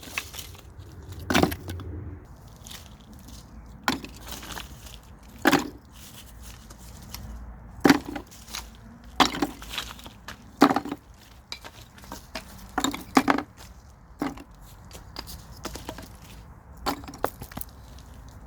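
Sharp wooden knocks and cracks at irregular intervals, about a dozen of them, one every second or two, like branches or cut pieces of wood being snapped or dropped. No saw motor is running between them.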